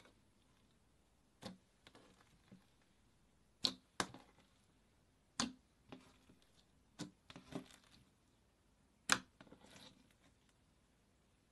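Clear slime squeezed and pressed by hand, giving irregular sharp pops and clicks from trapped air about a second or two apart, some followed by faint crackling.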